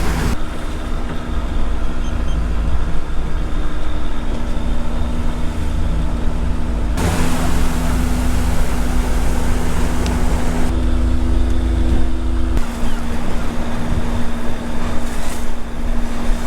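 Motor yacht's engine running steadily underway, a low hum under wind and water noise. The sound changes abruptly a few times, at about 7, 11 and 12.5 seconds in.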